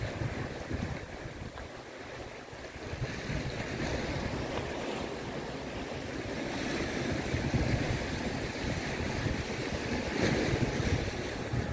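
Wind buffeting the microphone in gusts over the wash of small sea waves breaking on a rocky shore.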